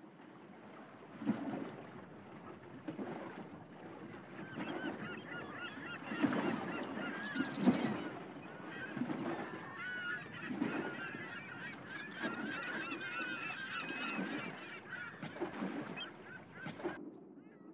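A flock of birds calling and honking over a noisy background, with a low pulse about every second and a half.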